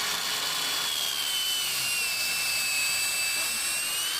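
Makita DLS600 18V cordless mitre saw with a brushless motor and 165mm TCT blade, running at full speed and cutting through a block of wood. Its high steady whine dips in pitch about halfway through as the blade works through the cut, then climbs back near the end.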